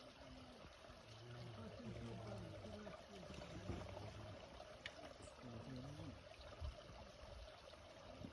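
Shallow river water running steadily over a rocky bed, a soft even rush, with faint indistinct voices of people talking under it.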